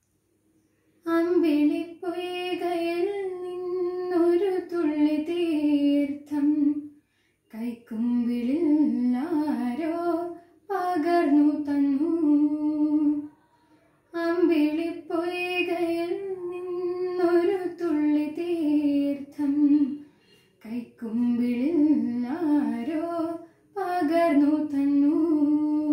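A teenage girl singing a light-music song solo and unaccompanied, in long held phrases broken by short breath pauses; the singing begins about a second in.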